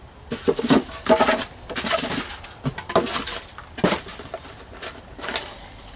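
Polystyrene foam packing blocks pulled out of a cardboard box around a trolley jack: an irregular run of scrapes, rustles and several sharp knocks as foam and cardboard are handled.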